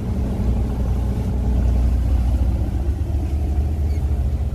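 Ship's engines running with a steady low drone and hum.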